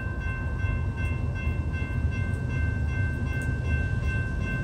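Railroad grade-crossing warning bell ringing in quick, even strokes over a steady low rumble of an approaching freight train.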